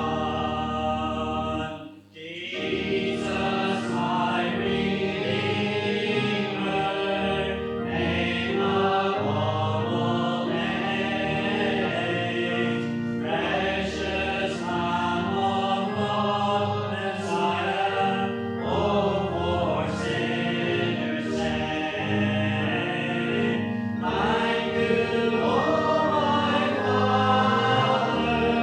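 Many voices singing a hymn with musical accompaniment, sung in phrases, with a brief break about two seconds in.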